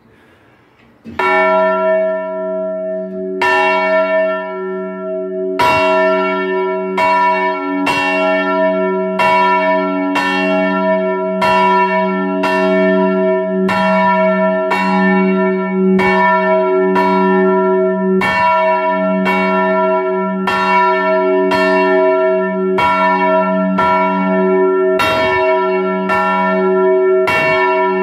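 Large swinging church bell (the tower's great bell) ringing, heard close up in the belfry. The clapper strikes about a second in, twice more about two seconds apart, then roughly once a second, and each loud stroke rings on in a deep sustained hum.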